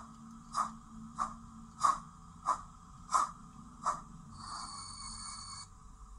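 O gauge Peckett model steam locomotive chuffing in an even rhythm, about one and a half chuffs a second, seven in all. A steady hiss with a thin high tone follows for about a second.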